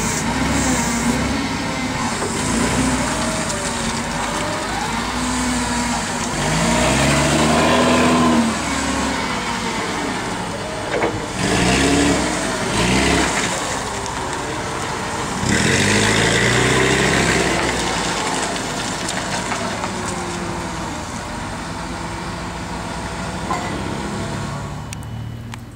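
1997 Caterpillar GP40 forklift's propane-fuelled engine running as the truck is driven and turned, revving up and dropping back three times.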